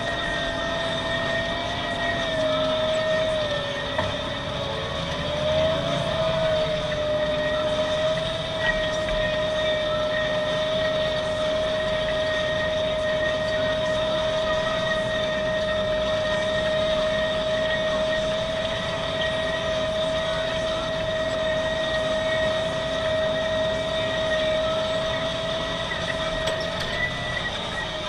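Deutz-Fahr 7250 tractor running steadily under load while pulling a plough, with an engine drone and a high whine held on one pitch. The whine sags briefly about four seconds in and then recovers.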